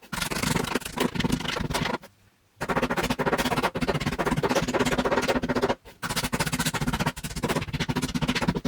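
Dense crackling crunches of something being crushed, in three long stretches with short pauses between them.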